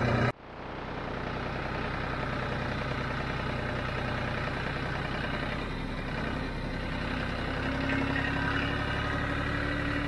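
John Deere 5055D tractor's three-cylinder diesel engine running steadily while driving, heard from the operator's seat, its note rising slightly near the end.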